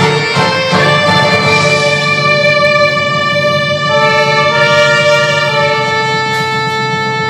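Enka karaoke backing music playing long held notes.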